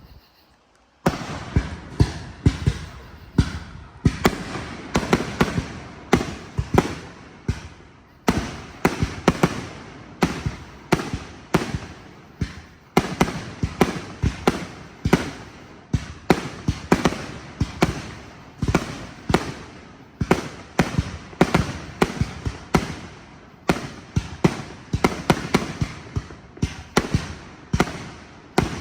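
Fireworks going off in a rapid barrage: sharp bangs with echoing tails, two to three a second, starting about a second in after a brief lull.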